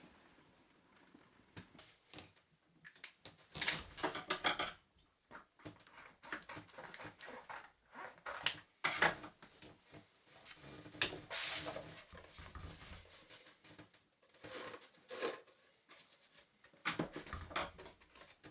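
Thermostat-housing gasket being cut out of gasket paper by hand, heard as a run of irregular scratchy strokes and rustles with short pauses. The loudest strokes come about four, nine and eleven seconds in.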